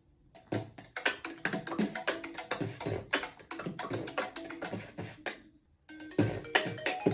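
Human beatboxing: a steady mouth-made kick-and-snare beat starts about half a second in and breaks off briefly near the end. It then comes back together with a pitched iPhone ringtone melody.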